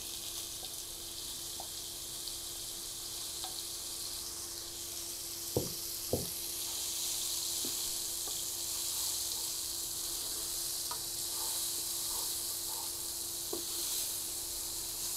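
Soaked soya chunks sizzling steadily as they fry in oil in a non-stick pan, with stirring and two sharp knocks about six seconds in.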